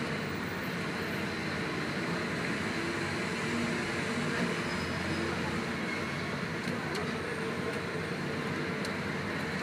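Steady low engine drone and road noise inside a bus moving slowly in heavy city traffic.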